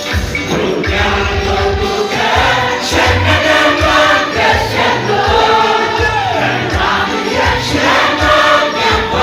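Congregation or choir singing a gospel worship song over a band with a steady beat.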